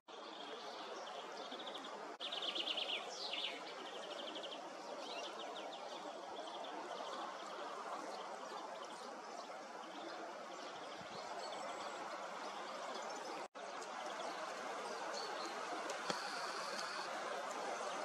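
Small songbirds calling over a steady rushing background. A loud rapid trill comes about two seconds in, a quicker run of notes follows a couple of seconds later, and a high held note sounds near the end. The sound drops out briefly at a cut in the middle.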